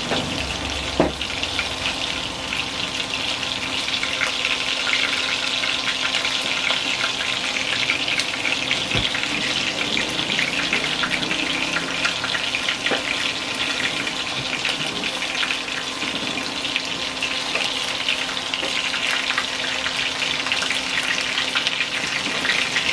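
Meatballs shallow-frying in hot oil: a steady sizzle with dense crackling, and one sharp tap about a second in.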